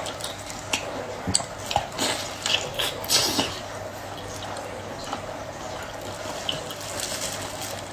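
Wet squelching and clicking of octopus, most of it in the first half, over a steady wet hiss.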